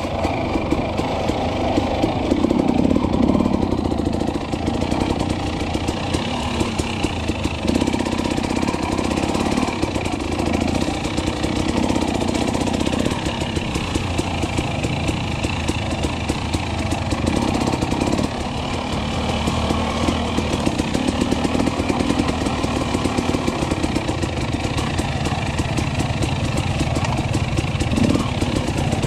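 Two-stroke KTM 300 XC-W enduro bike engine running under a rider, revs rising and falling as the throttle opens and closes, heard close from the rider's helmet camera.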